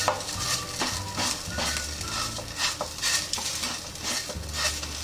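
Fingers patting and pressing soft thalipeeth dough flat on a non-stick tawa: a run of soft, irregular dabs and rubs against the pan, over a faint steady hiss.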